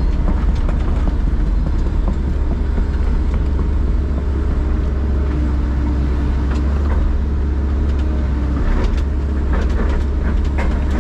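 Hitachi excavator's diesel engine running steadily under load, heard from inside the cab, as the boom pushes against a tree. A few light clicks near the end.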